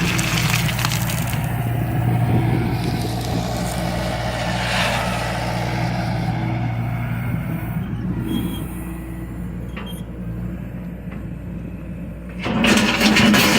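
John Deere excavator's diesel engine running steadily. It eases off in the second half, then picks up suddenly and gets louder near the end.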